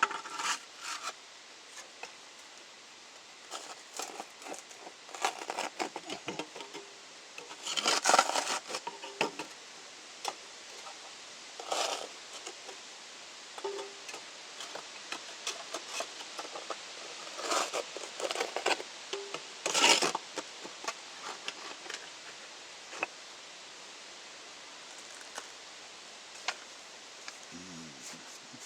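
Scraping and knocking as ash and brick are dug out of a wood-fired kiln's firebox: scattered short scrapes and clinks, with longer, louder scrapes about eight, twelve and twenty seconds in.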